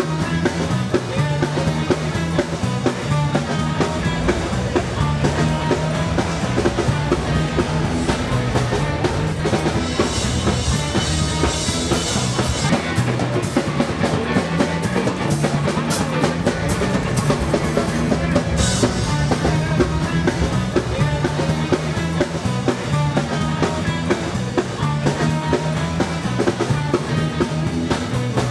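Rock music with a drum kit playing a steady beat over a repeating bass line; the cymbals get heavier for a few seconds in the middle.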